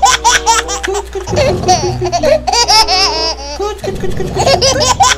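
Laughing toy shark giggling as its belly is tickled: a high, childlike laugh in repeated bursts, over a steady low hum.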